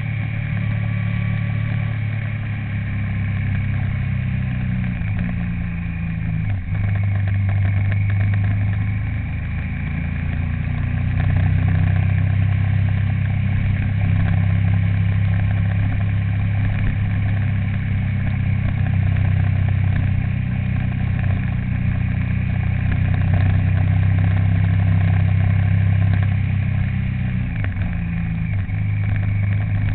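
A vehicle's engine runs steadily while driving, a continuous low drone with road noise, and the pitch shifts briefly twice, about a quarter of the way in and near the end.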